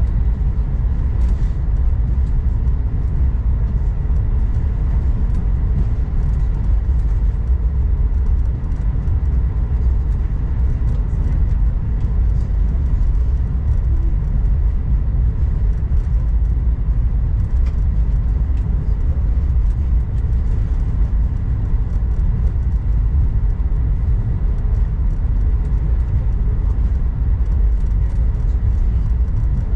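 Cabin noise inside an Airbus A220-100: a steady low rumble from its Pratt & Whitney PW1500G turbofan engines and the airflow, with a faint steady whine over it.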